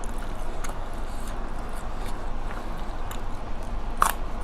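Eating sounds close to the microphone: chewing with scattered mouth clicks and smacks, and a sharper click near the end, over a steady low hum.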